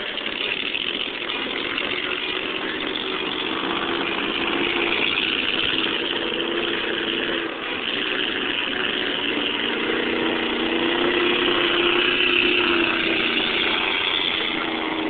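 Several boat engines running together in a steady, continuous drone, their pitches wavering slightly.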